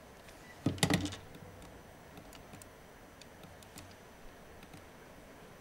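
Faint, scattered clicks of someone operating a computer's keys and mouse, with a louder knock and handling noise about a second in.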